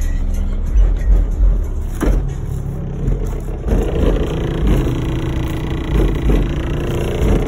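Deep, pulsing bass from two 18-inch H.A. Monolith subwoofers playing music at high volume, heard from outside the vehicle through its body and glass.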